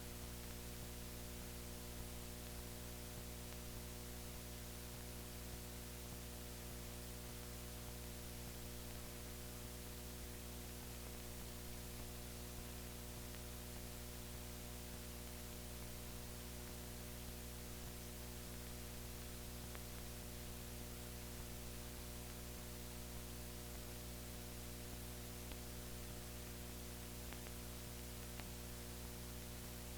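Steady hiss with a constant electrical hum and no other sound: the background noise of an old film transfer during a stretch with no soundtrack.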